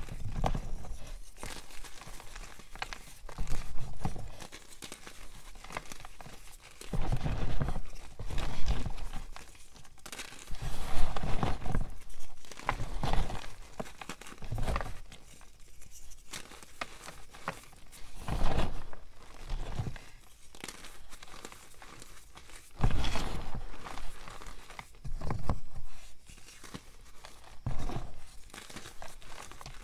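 Reformed gym chalk and cornstarch blocks being crushed and crumbled by hand in a plastic tub: dry, crunchy crumbling and gritty rustling of the powder and chunks. The crunches come in irregular bursts every second or two, several with a dull thump.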